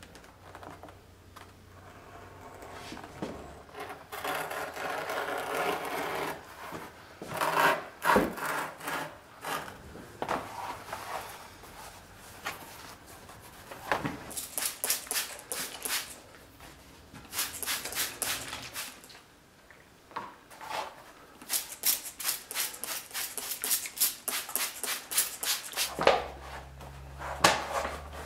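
Heavy vegetable-tanned leather being worked on a cutting mat: a crescent-bladed round knife cuts through it with a scraping hiss, then the stiff pieces are rubbed, slid and flexed, giving runs of quick crackles and clicks.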